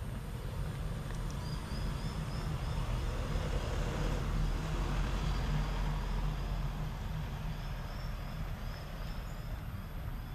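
A road vehicle passing: a low rumble that grows to its loudest about halfway through and then fades. Two runs of short high chirps, one early and one near the end.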